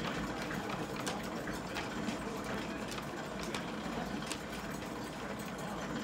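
Steam-powered sawmill's belt-driven carriage feed works running, a steady mechanical clatter with a few sharp ticks.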